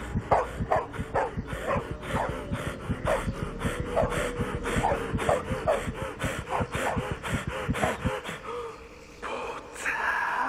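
A man's voice letting out rapid, short, pitched cries, about two to three a second, with low thumps under them, breaking off about eight seconds in.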